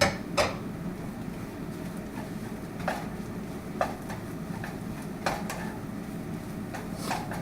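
Egg fried rice being stirred in a pan: a spatula knocks and clinks against the pan about six times, over a steady hiss and low hum.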